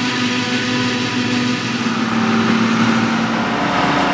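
John Deere 6850 self-propelled forage harvester running under load while chopping maize: a steady, loud engine and machinery drone with several constant whining tones. Near the end the main tone steps slightly higher.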